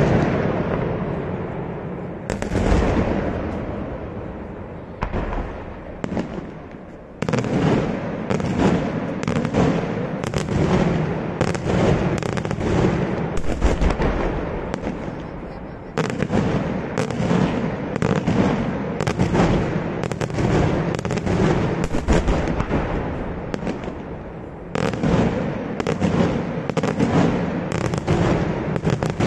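Daytime fireworks display: rapid runs of loud bangs from aerial shells and firecrackers, several a second, with the rumble trailing off in short lulls a few seconds in and again a little after the middle before the next runs start.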